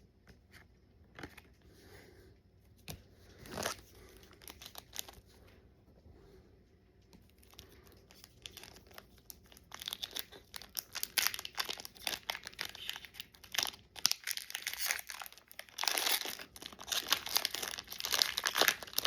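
Foil wrapper of a Pokémon booster pack crinkling and tearing as it is opened. It is faint and sparse at first, then loud and continuous for the second half.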